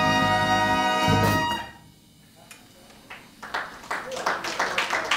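A big band's horns hold the final chord of a swing tune, with a short accent just before it cuts off about a second and a half in. After a brief hush, scattered hand clapping starts and builds.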